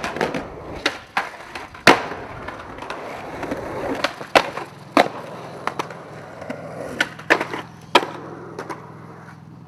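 Skateboard wheels rolling on concrete, broken by about ten sharp cracks of the board popping and landing.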